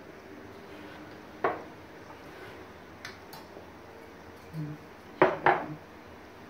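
Glass jars packed with beets being moved and set down on a counter, clinking against each other and the countertop: a few separate clinks, the two loudest close together about five seconds in.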